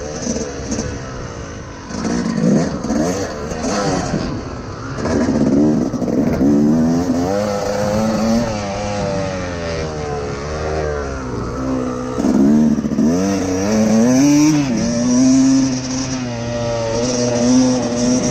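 Two-stroke dirt bike engine under a rider's throttle, heard from the rider's helmet, revving up and easing off again and again as the bike accelerates and shifts gears. It holds a steadier, higher note near the end.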